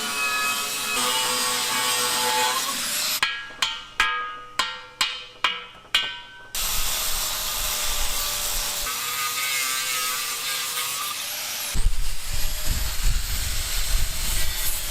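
Workshop tool noise: a rough rasping, then about seven sharp strikes in quick succession, each ringing briefly at the same pitch like struck metal. More rasping follows, and a louder, rough grinding starts near the end.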